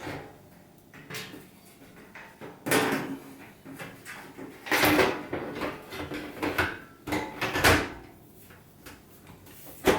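Plastic dishwasher front-panel cover being fitted and pushed into place by hand: several separate knocks, clacks and rattles with short quiet gaps between them.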